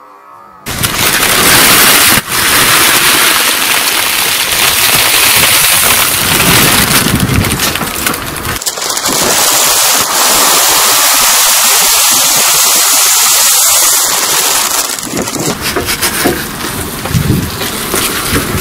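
Car tyre rolling over and crushing plastic snack packets and a bag of puffed corn snacks: a loud, dense crackling and crunching of crinkling plastic and breaking snacks. It starts suddenly about half a second in.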